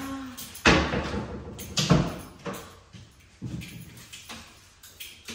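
Doors being opened and shut: two loud knocks, about a second in and again near two seconds, then a few lighter knocks.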